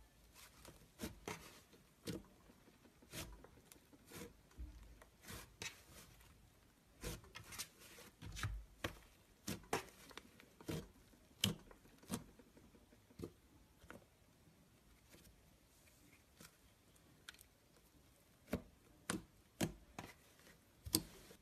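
Thick slime being squeezed, folded and pressed by hand, giving irregular sharp pops and clicks, in bunches of several about a second apart.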